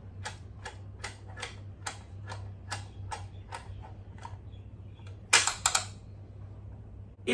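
Plastic teeth of a Crocodile Dentist Godzilla toy being pressed down one after another, clicking about three times a second. A little past five seconds in comes a louder clatter of several clacks, the jaw snapping shut on the randomly set tooth.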